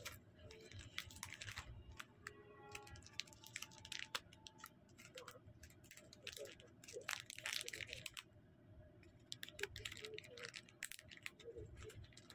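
Quiet crinkling and rustling of small clear plastic jewelry packaging being handled, with many small clicks and taps.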